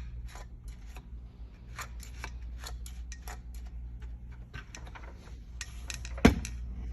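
A run of light clicks and rustles, like parts or tools being handled, with one sharp knock about six seconds in.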